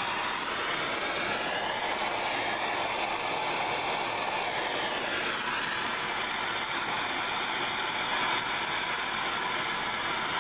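Handheld gas torch burning with a steady hiss, its flame heating copper and brass pipe fittings for sweat-soldering.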